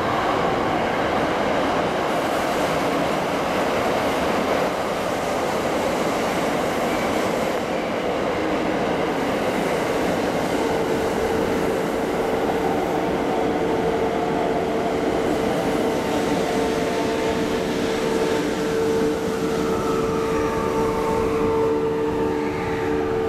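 Freight train rolling past at a level crossing, a steady loud rumble of wheels on rails. Several steady high tones join it about halfway through.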